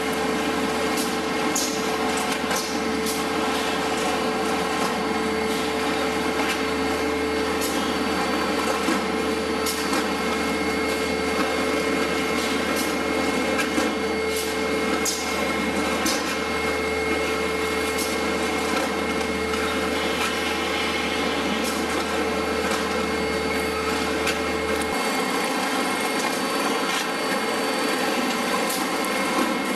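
Veneer composer (veneer core builder) running: a steady mechanical hum with a steady whine over it and scattered light clicks from the machine's feed and jointing parts. A low hum drops out about 25 seconds in.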